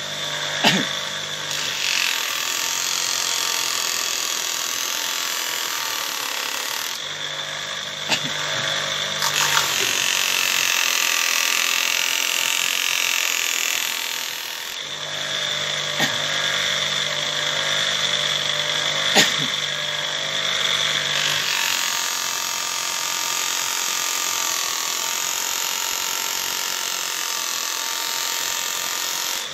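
Small electric knife-sharpening machine running, with a steel blade grinding against the spinning wheel in a steady hiss. A few sharp clicks come through, about four times.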